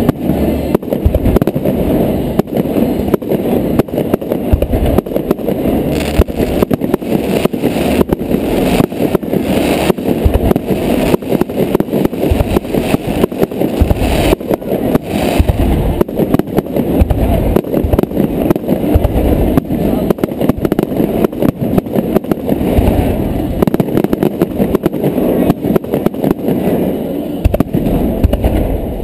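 Fireworks display: aerial shells bursting overhead in quick succession, a continuous run of bangs with no pause.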